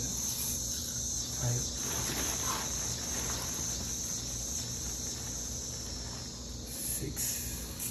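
Steady high-pitched hiss over a low hum, with a faint rustle of dry basmati rice being scooped with a plastic measuring cup within the first couple of seconds.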